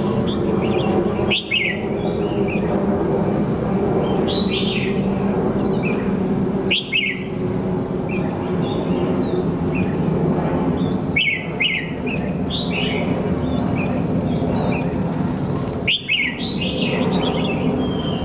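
Caged red-whiskered bulbul giving short bright call notes in clusters every few seconds rather than full song, against a steady low mechanical drone.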